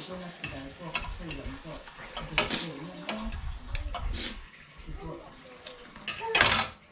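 A fork and chopsticks scrape and clink against a ceramic plate as spicy noodles are gathered up. Near the end comes a loud, hissing slurp of noodles from the fork.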